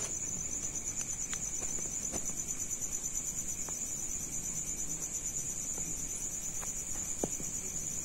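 Night insects trilling: one steady, high-pitched, finely pulsing note with a fainter lower note beneath it, and a few faint ticks now and then.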